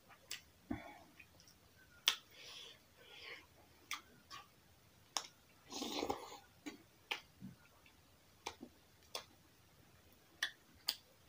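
Mukbang eating sounds of dry roti and potato curry: scattered sharp lip smacks and wet chewing clicks, with one longer noisy slurp about six seconds in.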